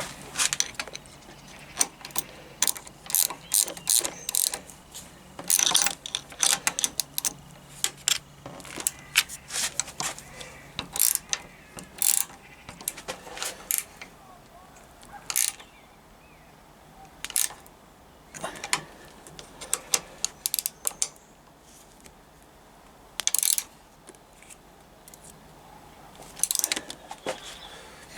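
Metal hand tools on the handlebar P-clamp nuts of a motorcycle: irregular clusters of sharp metallic clicks and clinks with pauses between, as the nuts are fitted and tightened with a socket from underneath.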